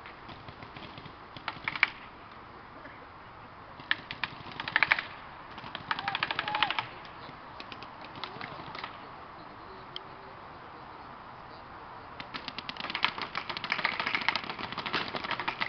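Paintball markers firing in rapid strings of shots, several short bursts and a longer one of about three seconds near the end.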